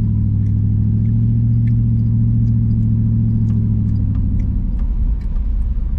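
Car driving on a gravel road, heard from inside the cabin: a steady engine hum that drops away about four and a half seconds in, leaving a rougher low rumble of tyres on gravel, with scattered light ticks.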